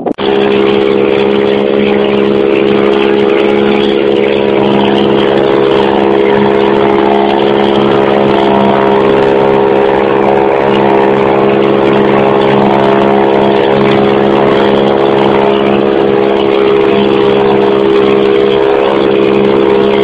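Engine of a motorized outrigger boat (bangka) running steadily while underway, a loud, even drone with the hiss of wind and water over it.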